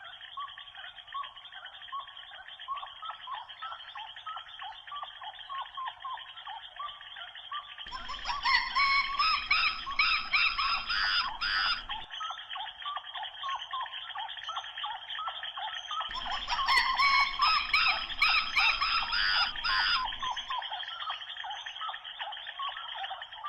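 Monkeys calling: a steady stream of rapid, repeated short chirping calls, growing louder and fuller for a few seconds about a third of the way in and again past the middle.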